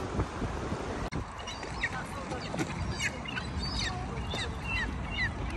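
Waterbirds on the pond calling: a run of short, high calls that slide downward, about three a second, beginning about a second in. Wind rumbles on the microphone underneath.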